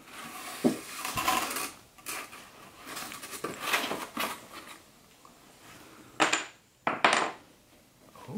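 Rustling and swishing of a padded fabric bag being handled and lifted, in uneven strokes with a few light knocks, and two sharper swishes about six and seven seconds in.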